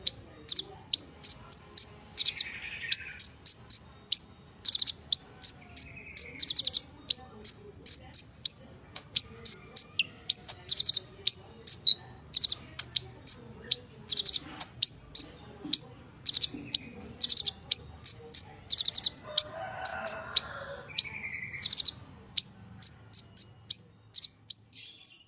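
Purple-throated sunbird (kolibri ninja) singing a fast, unbroken run of high thin chips and sharp downslurred notes, several a second, broken by short harsh buzzy bursts.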